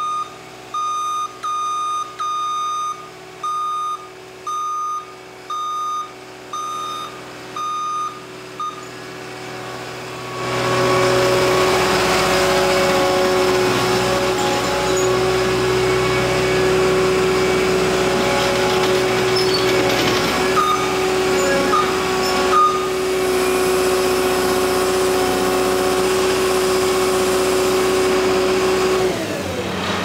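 ASV RT-120 Forestry compact track loader: its backup alarm beeps a little more than once a second for about nine seconds. Then the diesel engine revs up and runs loud and steady, and near the end it drops back down.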